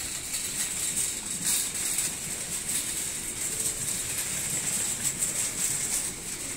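Rustling and rattling noise: a dense, continuous run of quick scratchy strokes.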